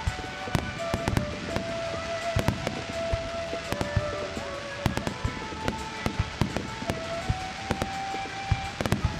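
Aerial firework shells bursting in a rapid, uneven series of sharp bangs, often several a second, over music carrying a slow melody of long held notes.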